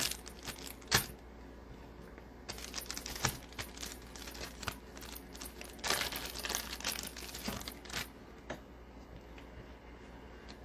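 Crinkling and crackling of plastic trading-card packaging being handled, in two spells of dense crackle, with a couple of sharp clicks at the start.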